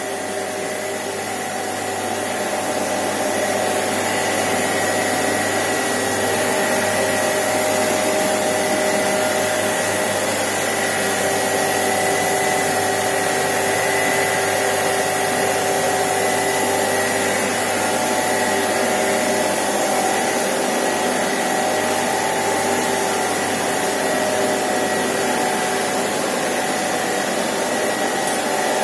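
Swimming-pool circulation pumps and their electric motors running steadily in the pump room: a continuous loud hiss with a few steady whining tones held over it.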